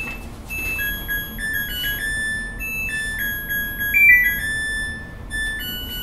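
Samsung washing machine playing its electronic end-of-cycle melody: a tune of clean beep notes stepping from pitch to pitch, with a quick higher trill about four seconds in.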